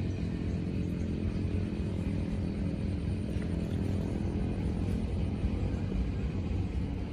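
Small boat engine running steadily with an even low drone, the engine speed not changing.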